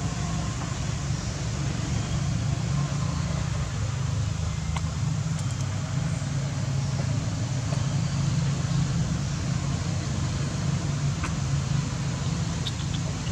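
Steady low rumble and hiss of outdoor background noise, with a few faint clicks.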